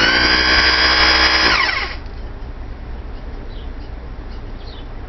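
Hammer drill fitted with a homemade rivet-setting bit, run against a steel rivet on a helmet for about two seconds before winding down.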